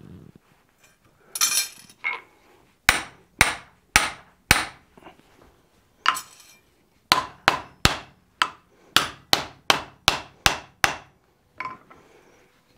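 Hand hammer striking a steel drift driven into the eye of a red-hot wrought iron hammer head on an anvil, re-opening the eye. After a brief clatter, four sharp blows about half a second apart, a pause, then a quicker run of about a dozen blows, roughly three a second.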